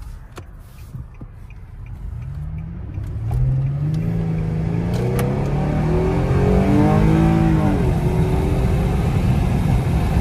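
Infiniti G37 sedan's VQ37 V6 accelerating hard from inside the cabin, the engine note rising steadily for several seconds, then dropping about eight seconds in as it eases off, leaving steady road and tyre noise.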